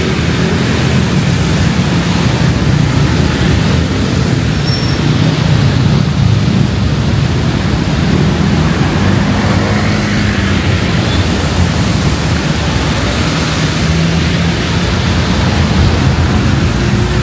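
Heavy rain falling in a steady downpour, with the low hum of street traffic engines underneath.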